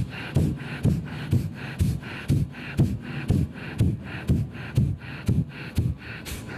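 Kapalbhati pranayama breathing: short, forceful exhalations pushed out through the nose in a steady rhythm, about two a second.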